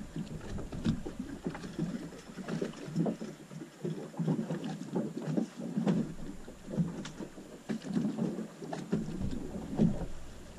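Water slapping and lapping against the hull of a small boat, with irregular surges and scattered light knocks.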